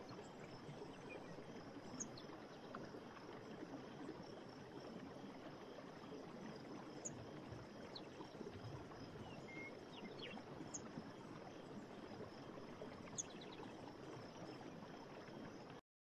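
Faint nature ambience: a steady wash of water with a few short, high chirps scattered through it. It cuts off abruptly just before the end.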